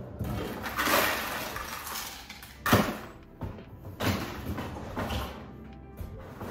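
Rummaging in the bottom pull-out drawer of a stainless French-door refrigerator: packages rustling and shifting, a sharp knock a little under three seconds in, then the drawer pushed shut about four seconds in.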